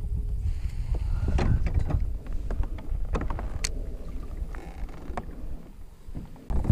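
Clicks and knocks of a baitcasting rod and reel being handled, scattered over a steady low rumble that drops away near the end and then returns suddenly.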